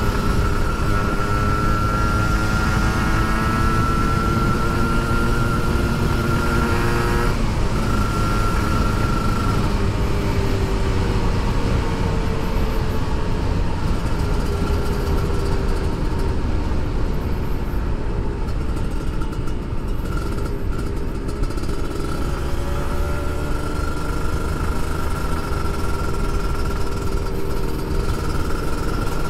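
Kawasaki Ninja RR's 150 cc single-cylinder two-stroke engine pulling under way, its pitch climbing as the bike accelerates and dropping back at a gear change about seven seconds in, then holding steadier. Wind rushes on the microphone underneath.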